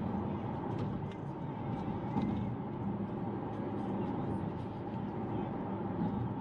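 Steady road and engine noise of a car being driven at a constant speed.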